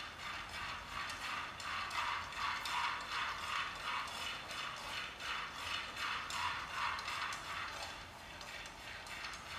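A utensil stirring and scraping in a frying pan over food frying on a gas burner: a repeated scrape about two or three times a second over a steady sizzling hiss.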